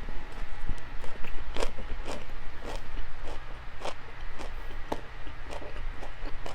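A person chewing and eating close to the microphone, with irregular sharp mouth clicks about once or twice a second over a steady low hum.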